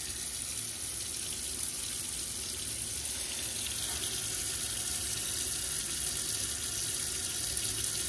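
Kitchen tap running hot water in a steady stream into a stainless steel sink, a little louder from about four seconds in.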